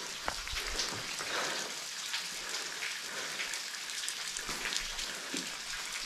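A thin trickle of water spilling over the edge of a rock bluff and dripping onto the rocks below, a steady hiss of small drops. The waterfall is running at only a trickle in the dry season.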